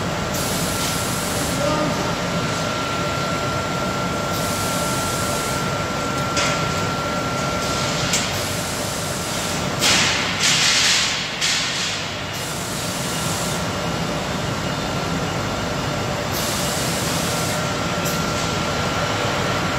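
Steady machinery noise of a powder coating booth and its automatic gun reciprocator, with a thin constant whine. About halfway through, a few short loud hisses of air break in.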